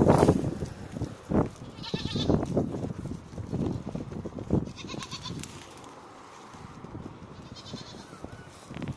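Goats bleating repeatedly, with a loud bleat at the start and several more over the next few seconds, then quieter.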